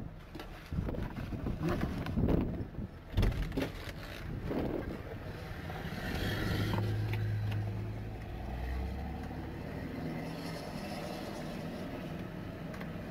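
Gusty wind buffeting the microphone in low rumbles, then a vehicle engine running with a steady low hum for a few seconds after the middle.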